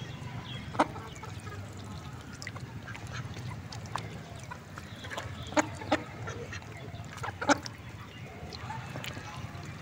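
Ducks quacking: four short, loud quacks, one about a second in, two close together around six seconds in, and one more a second and a half later, over a steady low rumble.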